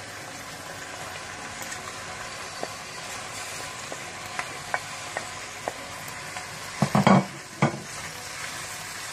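Cream sauce sizzling in a frying pan while boiled penne is pushed off a plate into it with a wooden spatula and stirred, with light clicks of the pasta and spatula. About seven seconds in, a few louder knocks and scrapes against the pan.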